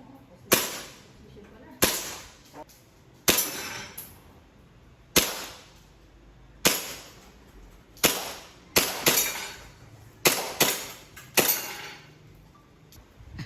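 Taran Tactical John Wick airsoft pistol, powered by green gas, firing about ten sharp shots at an uneven pace, some in quick pairs near the end, each with a short ringing tail.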